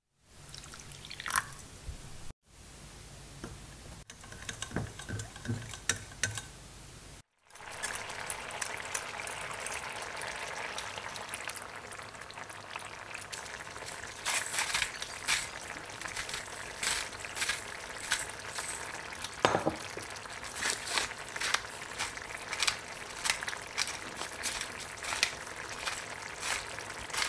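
Kohlrabi cubes in coconut milk simmering in a pan, a steady bubbling hiss. From about halfway on, salt and then pepper are ground over it from hand mills, heard as dry clicking grinds. The first few seconds are short separate snippets with a few small clinks.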